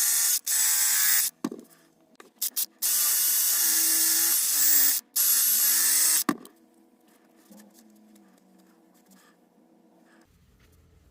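Drill spinning a small abrasive polishing pad to buff a carving gouge's edge, run in four short bursts with a steady whine and hiss, each starting and stopping abruptly; it goes quiet about six seconds in.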